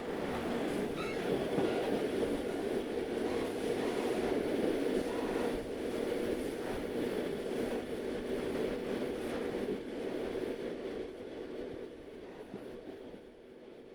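Old train running on the rails, a steady rumble with a faint wavering squeal about a second in, fading away over the last few seconds.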